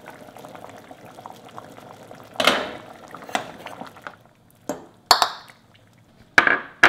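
Doenjangguk simmering in a pot, then a stainless steel ladle scooping and pouring the soup into a ceramic bowl, with about six sharp clinks of the ladle against the pot and bowl over the last four and a half seconds.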